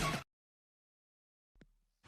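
Background electronic music cutting off about a quarter second in, then dead silence.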